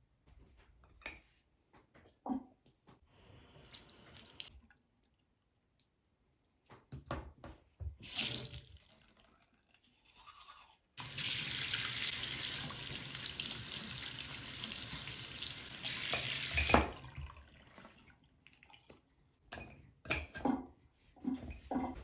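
Tap water running into a sink for about six seconds, then shut off abruptly. Small clicks and knocks of things being handled come before and after.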